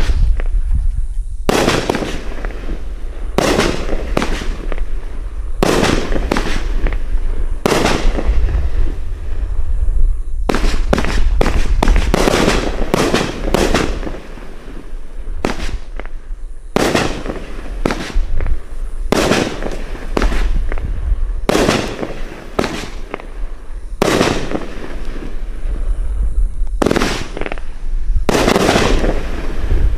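Winda 'M-Town Show Down' 16-shot, 500-gram consumer fireworks cake firing its aerial shells: a run of sharp bangs, irregularly spaced about one to two seconds apart, each trailing off briefly.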